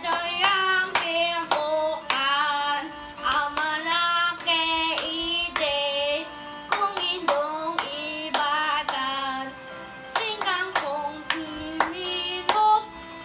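A child singing a slow Kapampangan folk song, holding notes with a wavering vibrato, with sharp clicks or claps scattered through the phrases.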